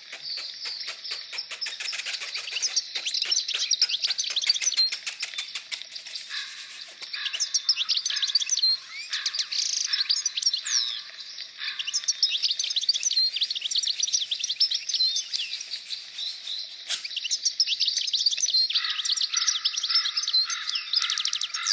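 Many small songbirds chirping and twittering at once, with dense overlapping quick calls that rise and fall.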